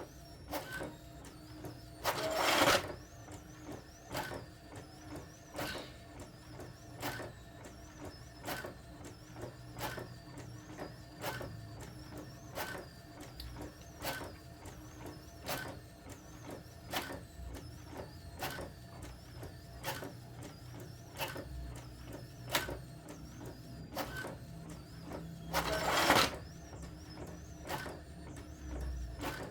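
Brother DCP-T700W ink-tank inkjet printer printing: a steady mechanical hum with a sharp click about every second and a half. Two louder, longer noisy bursts come about two seconds in and near the end.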